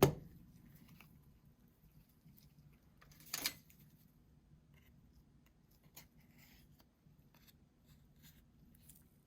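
Quiet handling of a smartphone and its parts on a workbench: a few light clicks and taps, with a short scrape about three and a half seconds in.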